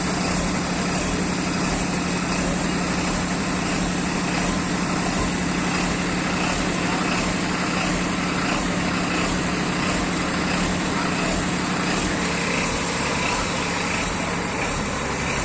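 Engine of road-construction machinery running steadily, a constant low hum that does not change in speed.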